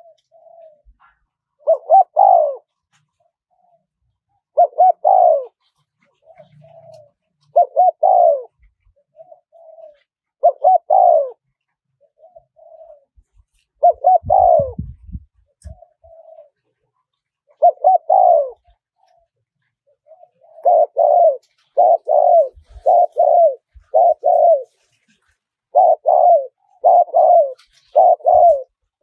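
Spotted dove cooing in a wild-style call: loud coo phrases about every three seconds with short soft notes between them, quickening to about one phrase a second from about two-thirds through.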